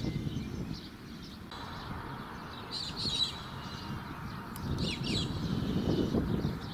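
Birds chirping briefly, about three seconds in and again about five seconds in, over a steady low rumble.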